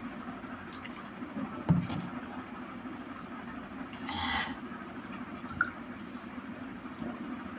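A person drinking water from a plastic bottle, with a steady low hum behind. There is a sharp thump under two seconds in and a short noisy burst about four seconds in.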